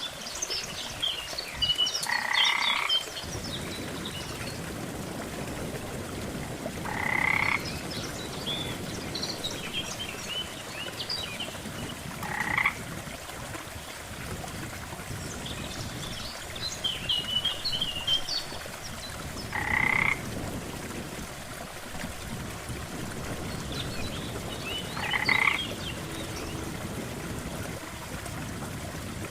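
Frogs croaking at a lake: a louder croak about every five seconds, with scattered shorter, higher calls between them, over a steady low wash of water.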